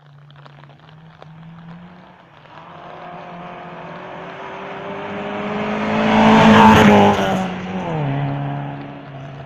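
Rally car at full speed on a gravel stage, its engine note rising as it approaches. It passes close about two-thirds of the way through, with a rush of tyres on loose gravel, and its engine note falls sharply a second later as it goes away.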